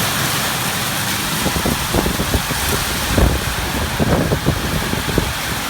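Heavy rain pouring down in a storm, a steady hiss, with irregular low thumps through the middle seconds.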